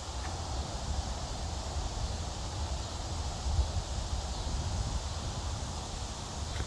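Steady outdoor background noise, with the low, fluctuating rumble of wind on the microphone and no distinct events.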